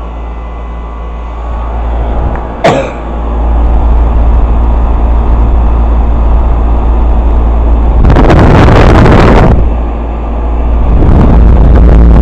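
Carrier 38BRC outdoor air-conditioner unit running with a heavy low hum. A sharp click comes a little over two and a half seconds in, after which the unit gets louder, and loud rushing noise swells twice in the second half. The owner puts the loud startup down to the compressor taking in liquid refrigerant instead of vapor.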